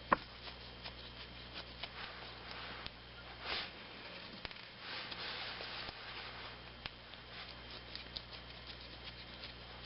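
Small clicks and rustles of a plastic car charger plug being handled with its two screws out, with one sharp click about the start, over a low steady hum.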